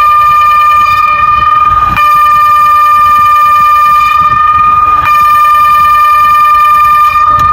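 ECI 2400 electronic civil-defence siren sounding a loud, steady tone held on one pitch, with a brief break about two and again about five seconds in.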